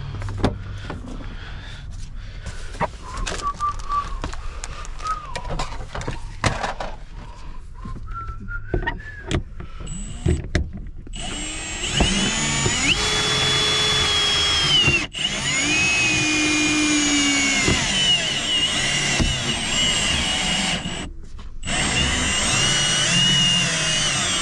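Handheld power tool running in spells, its motor whine dipping and rising in pitch under load and stopping briefly twice. In the first half, scattered clicks and knocks before it starts.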